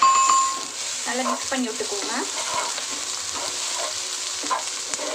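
Drumstick leaves and grated coconut sizzling in a pan with a steady hiss, stirred with a wooden spatula that scrapes across the pan.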